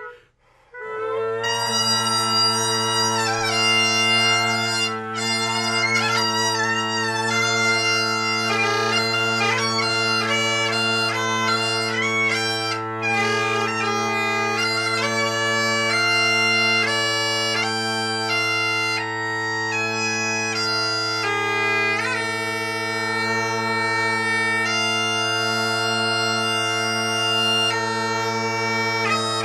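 Great Highland bagpipe struck up about a second in and played: steady drones under a changing chanter melody.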